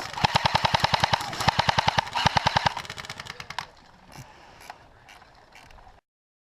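Airsoft electric rifle firing rapid full-auto bursts, a fast even train of sharp clacks over a motor whine, stopping about two and a half seconds in, followed by a few scattered single shots. The audio cuts to dead silence near the end.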